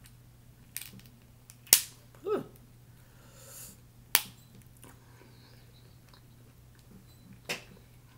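Snow crab leg shells cracking and snapping as they are broken open by hand: about four sharp cracks, the loudest just under two seconds in.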